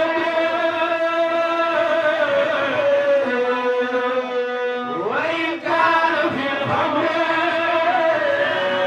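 Men chanting a devotional poem together, a lead voice holding long drawn-out notes into a microphone with others singing along. One voice slides up in pitch about five seconds in.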